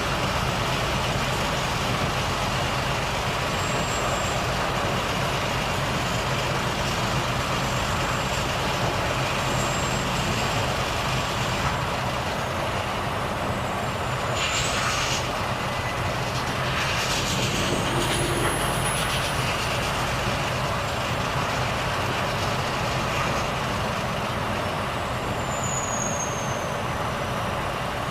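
Volvo FH truck's diesel engine running steadily on the road. About halfway through come two short bursts of air hiss from the air brakes. Near the end a brief high whistle falls in pitch.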